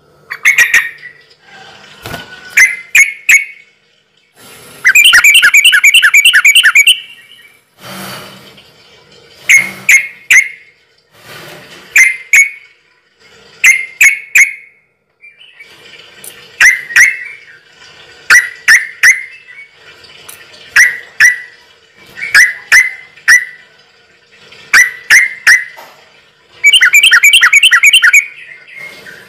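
A bird calling over and over in loud, sharp chirps, mostly in quick clusters of two to four, with two fast rattling trills of about two seconds each.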